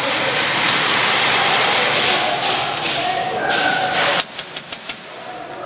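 A loud, steady rushing noise with a few faint voices, cut off suddenly about four seconds in. A quick string of sharp airsoft gun shots follows, about five a second.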